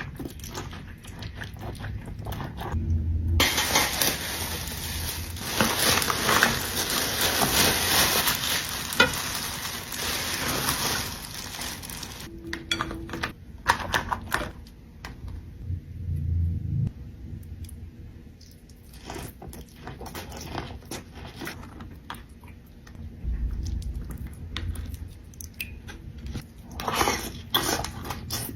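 Dishes and cutlery clattering and clinking as food is handled, with a loud steady hiss for about nine seconds early on, followed by scattered clicks and taps.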